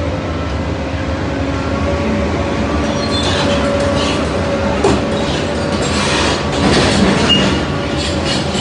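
Caterpillar 395F crawler excavator running steadily while working tram rails, with metal-on-metal squealing and clanking setting in about three seconds in and a sharp clank near the middle.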